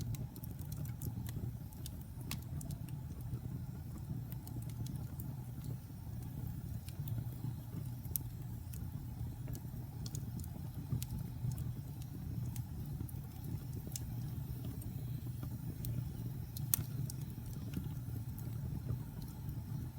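Wood fire burning in a fireplace: a steady low rumble of the flames with scattered sharp crackles and pops from the burning logs, one louder pop late on.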